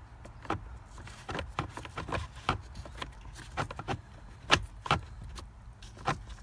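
Irregular plastic clicks, knocks and rubbing as the cabin air filter holder is pulled out of its housing behind the glove compartment, with one louder knock about four and a half seconds in, over a low steady hum.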